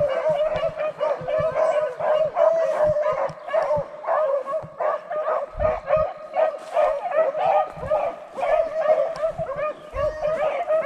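A pack of beagles baying together in an unbroken chorus of overlapping voices, the chase cry of hounds running a rabbit's track.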